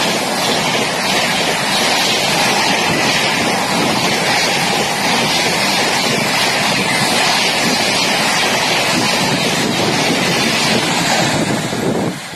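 Coaches of the Sealdah Rajdhani Express passing at speed, a loud steady rush of wheels on rail and moving air. The noise drops away suddenly near the end as the last coach clears.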